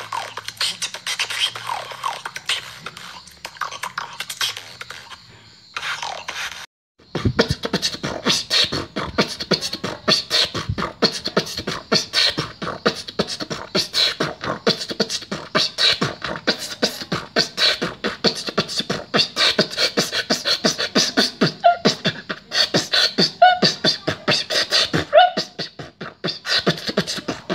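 A female beatboxer performing solo. It opens with sparser mouth percussion and short sliding pitched sounds, breaks off briefly about a quarter of the way in, then turns into a fast, dense run of percussive mouth sounds.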